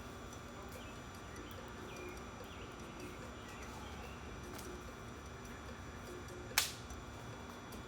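Faint steady background noise with a few soft short chirps, broken by one sharp click or knock about six and a half seconds in.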